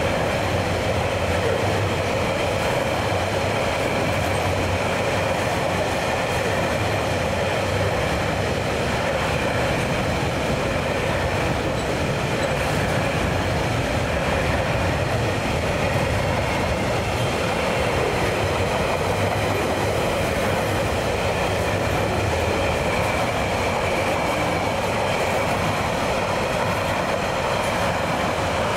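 Freight train's container flat wagons rolling past close by: a steady, unbroken rumble and clatter of steel wheels on the rails.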